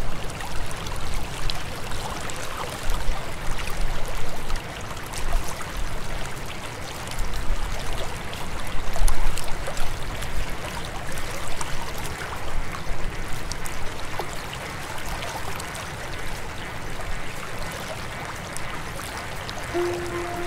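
River water running with a steady rushing, broken by uneven low rumbles.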